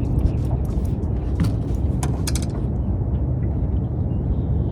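Steady low rumble of a boat on open water, with a few sharp clicks and ticks in the first two and a half seconds.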